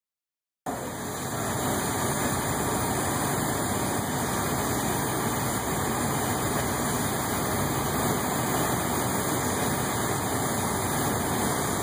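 Heavy diesel engines running steadily at a constant rumble: the mobile cranes and semi truck idling during a tank lift.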